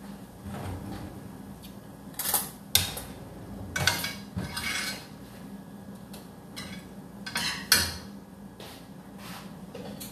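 Kitchen pans and metal utensils clattering: a series of clinks, knocks and short scrapes, the loudest a sharp clank near the end, over a steady low hum.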